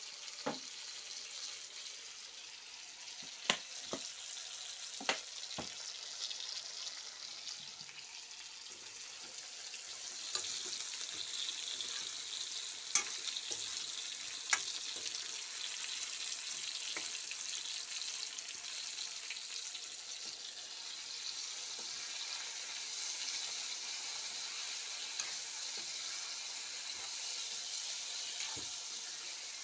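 Chicken and okra frying in oil in metal karahis, a steady sizzling hiss that grows louder about ten seconds in. A metal spoon stirring the food clinks sharply against the pan a handful of times.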